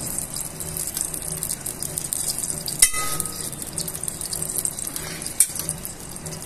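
Ghee sizzling with a fine, steady crackle as it melts in a hot metal pot. A metal spoon clinks against the pot once with a short ring about three seconds in, and taps it lightly again near the end.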